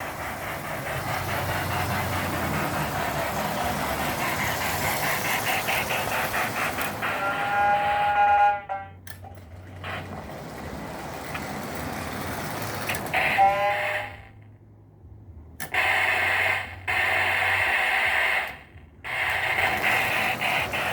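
Lionel 8206 model steam locomotive's 'Mighty Sound of Steam' unit chuffing steadily as the engine runs, with its electronic whistle sounding twice, the first time at about 7 seconds in and again at about 13 seconds in. The sound cuts out abruptly a few times.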